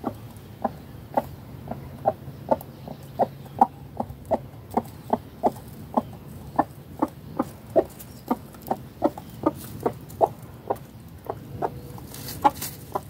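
A hen clucking steadily while she forages on scattered food: short, low clucks at about two to three a second.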